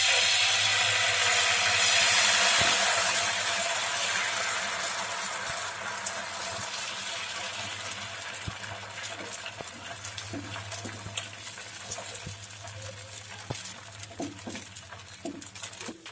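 Dosa batter of barnyard millet and sago sizzling as it is poured onto a hot oiled pan and spread with a ladle. The sizzle starts suddenly, is loudest in the first few seconds and slowly dies down, with a few light clicks of the ladle.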